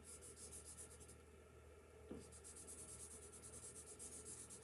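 Faint highlighter marker stroking back and forth on paper in quick scratchy strokes, in two runs with a pause of about a second between.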